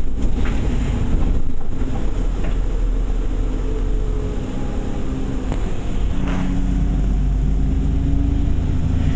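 Diesel bus engine running as the bus drives, heard from on board as a loud, steady low rumble. The engine note rises about six seconds in.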